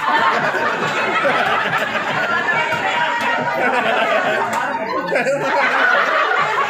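Many people talking over one another and laughing in a crowded room.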